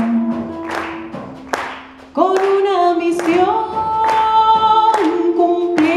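Live band music: held sung notes with steady hand claps keeping the beat, about one clap every 0.7 seconds.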